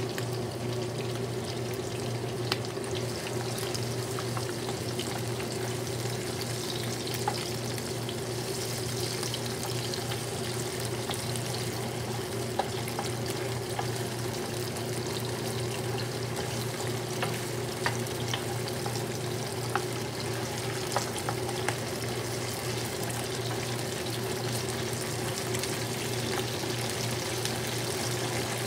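Onion and pork sizzling in oil in a nonstick frying pan, with scattered light clicks from a wooden spatula stirring against the pan, over a steady low hum.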